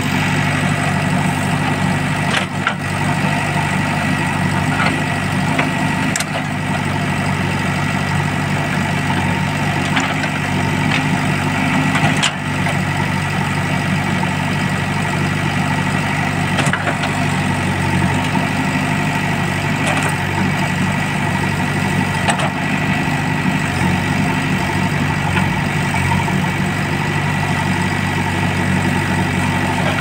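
JCB backhoe loader's diesel engine running steadily while its backhoe digs out a muddy drain, with a steady high whine over the engine and a few sharp knocks at irregular intervals.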